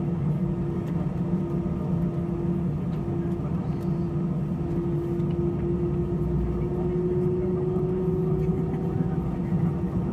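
Airbus A320 cabin interior near the wing while taxiing: the CFM56 engines at low thrust give a steady low rumble with a whine over it that edges slightly higher in pitch about halfway through.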